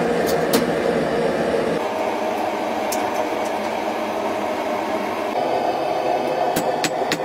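Gas forge burner running with a steady rushing noise as flame jets from the forge mouth. Near the end come a few sharp metallic clinks of hot steel and tools on the anvil.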